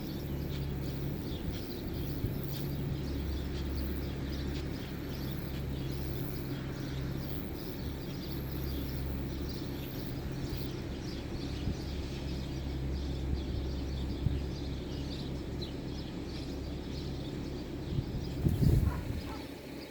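Steady low engine hum over an even outdoor wash of noise, with faint chirps on top; a few louder knocks come near the end.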